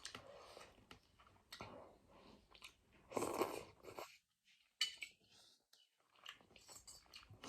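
Close-up chewing and crunching of a mouthful of vegetable noodle soup, in short bursts with the loudest a little after three seconds in.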